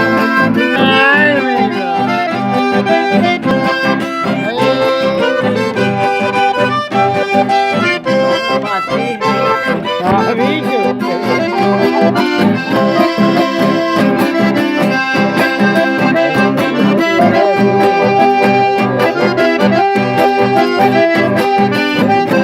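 Accordion-led music playing without a break, held chords and melody over a steady beat.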